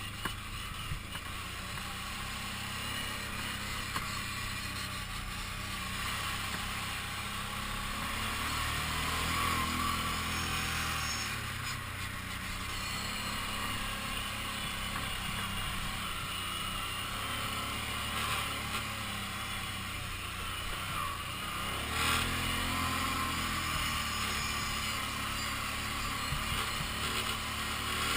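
Kawasaki Brute Force 750 ATV's V-twin engine running steadily under way, picking up revs about a third of the way in and again after about three-quarters, over a steady hiss.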